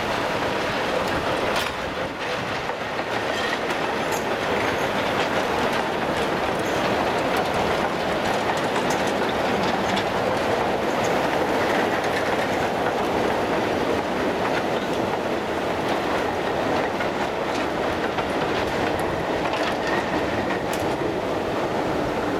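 Gravity slate train of narrow-gauge slate wagons coasting downhill with no locomotive: iron wheels rolling and clattering over the rail joints in a steady run.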